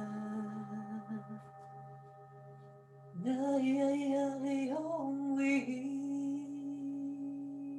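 Meditative music: a voice singing long held notes over a steady low drone. The singing fades about a second and a half in and comes back strongly at about three seconds, ending on a long held tone.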